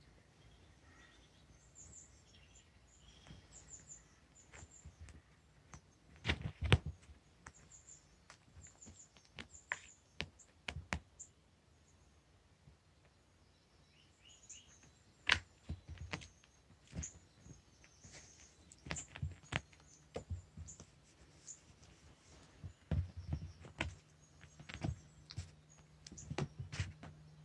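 A kitten pouncing on a wand toy across carpet: irregular soft knocks and thumps of paws and toy, the loudest about a quarter of the way in, with faint high chirps in between. A low steady hum comes in about two-thirds of the way through.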